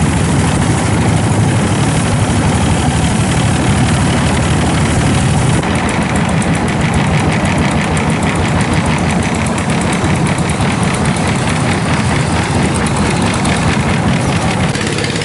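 Long-tail boat engine running steadily and loud. A fast, even pulsing comes into the engine noise about six seconds in.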